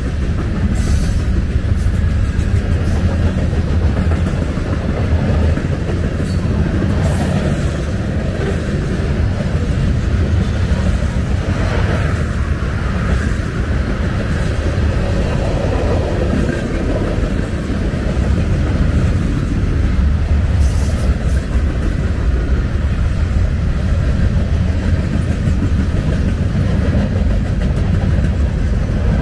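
Freight cars of a Norfolk Southern train rolling past close by: a steady, loud rumble of steel wheels on the rails.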